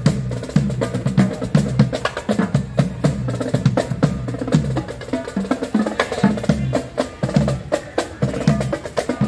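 Marching drums of a green-army-men drum corps beaten with sticks while walking: a fast, steady drum cadence with many sharp stick and rim clicks.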